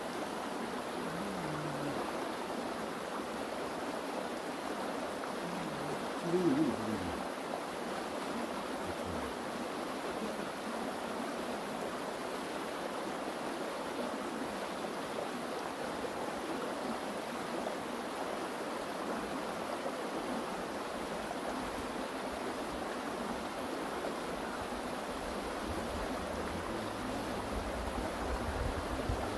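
Steady rush of flowing water, with a short voice heard briefly about six seconds in.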